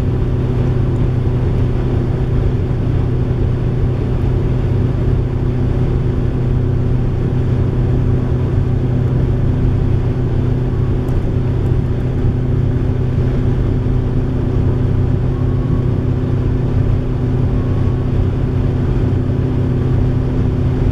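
Mercedes diesel van heard from inside the cabin at high motorway speed: a steady, loud drone of engine hum with tyre and wind noise, holding an even pitch with no revving or gear changes.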